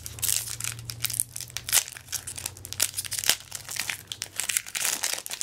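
Shiny foil-style wrapper of a Magic: The Gathering 2014 Core Set booster pack being torn open and crinkled by hand: a dense run of irregular sharp crackles.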